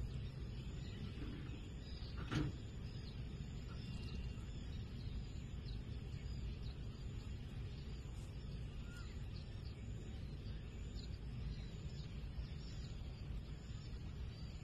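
Faint bird chirps scattered over a steady low rumble, with one sharp knock about two and a half seconds in.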